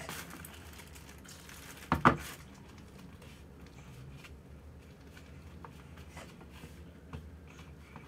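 Soft rustling and handling noises as hands work bread dough in a plastic tray, with one sharp double knock about two seconds in.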